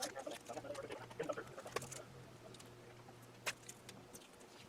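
Faint crackling and small clicks of masking tape being peeled off a freshly painted lathe part, with one sharper click about three and a half seconds in, over a steady low hum.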